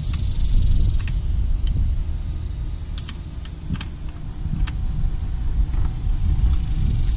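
Scattered light metallic clinks of a wrench and the serpentine belt tensioner as the tensioner is held back and the belt is routed, over a steady low rumble.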